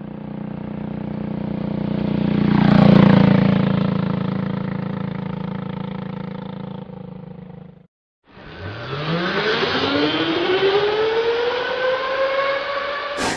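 Italian-made electric go-kart passing by, its motor whine swelling to a peak about three seconds in with the pitch dropping as it goes past, then fading away. After a cut, an electric go-kart motor whine rising steadily in pitch as the kart accelerates.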